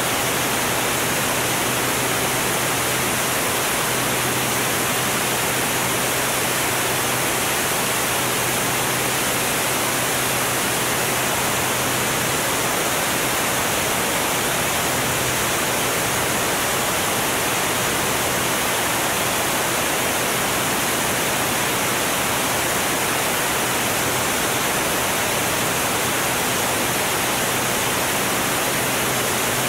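Steady rush of wind over an exterior-mounted camera on a Formula One class air racer flying at about 215 mph, with a constant low drone from its Continental O-200 engine and propeller beneath the noise.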